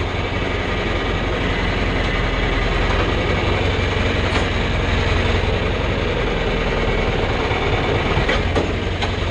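John Deere 3010 tractor engine running steadily at low speed while maneuvering with a hay wagon, with a few brief knocks of the rig.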